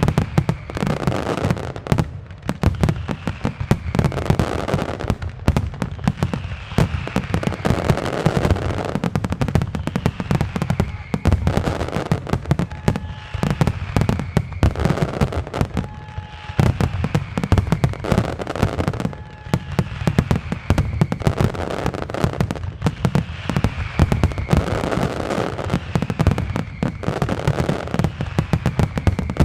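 Dense finale barrage of aerial firework shells and salutes: a continuous rapid string of bangs with no let-up, with short falling tones recurring every second or two.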